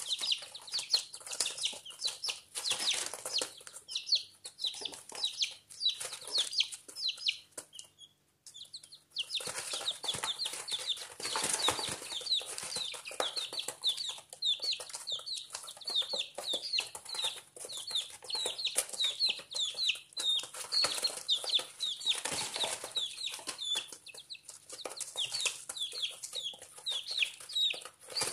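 A brood of two-week-old chicks peeping almost without pause: many short, high peeps that slide down in pitch, overlapping one another. The peeping breaks off briefly about eight seconds in.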